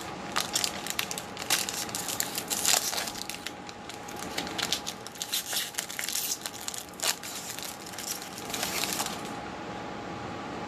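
Foil trading-card pack wrappers being torn open and crinkled, a dense irregular crackling that stops about nine seconds in.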